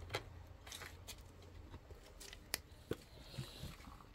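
A few scattered sharp clicks, with a low hum that drops away about two seconds in.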